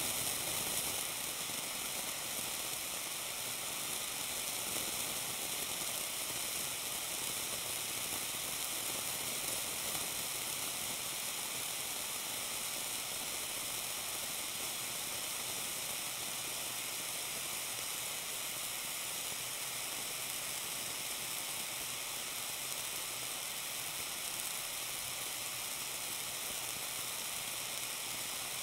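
Small blowtorch flame hissing steadily as it is played on a wedge of blue cheese, with the cheese sizzling as it melts.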